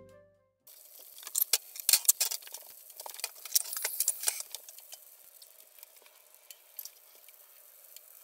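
Cooked rice crackling and sizzling in a hot nonstick frying pan, a dense run of sharp crackles that thins out after about four seconds.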